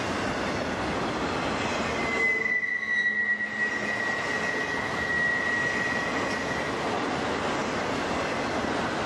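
Freight train of autorack cars rolling past, the wheels squealing as the cars take a curve. One high, steady squeal comes in about two seconds in over the rolling noise and fades out after about six seconds.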